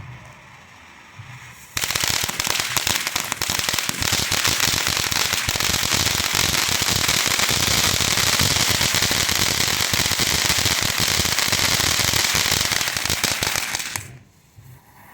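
Consumer firework fountain shaped like baby Yoda, breaking into a loud, dense crackle of tiny rapid pops about two seconds in. The crackle runs steadily for about twelve seconds, then cuts off suddenly near the end.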